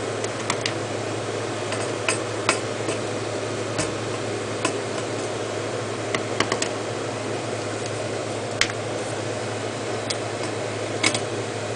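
Scattered light clicks and taps of a metal mounting bracket being taken off a hard drive by hand and tool, over a steady low hum.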